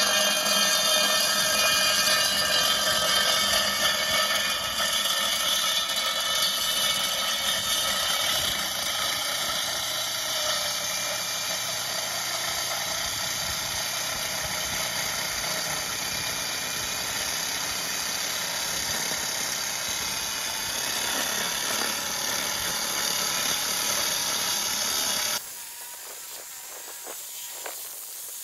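Handheld electric core drill spinning a water-fed diamond core bit into a concrete curb: a steady, high whine of many tones. The sound drops abruptly and becomes much quieter near the end.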